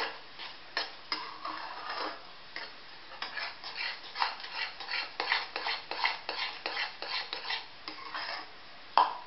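Metal spatula scraping and stirring thick, cooked semolina upma around a metal kadai: a quick run of short scrapes, about three to four a second, with one louder scrape near the end.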